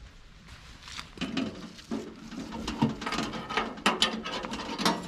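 Irregular clicks and knocks of small objects being handled, starting about a second in and coming unevenly.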